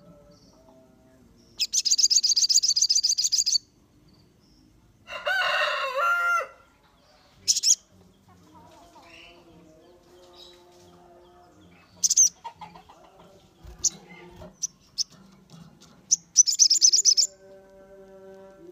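Sogon songbird singing: a rapid, high trill near the start and again near the end, with short sharp chirps between. A lower call with several stacked pitches comes about five seconds in.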